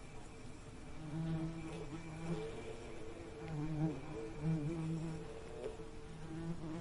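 Bees buzzing in flight, the buzz swelling and fading and wavering in pitch as they move about.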